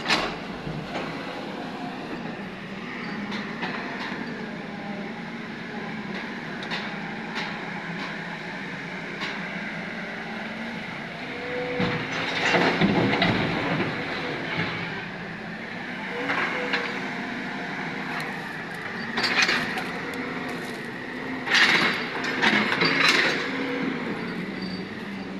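JCB tracked hydraulic excavator's diesel engine running under hydraulic load, its pitch rising and falling as the arm works. Several loud rattling crashes of soil and rubble, the first about halfway through as a bucket load is tipped into a dump truck's steel bed, then twice more near the end.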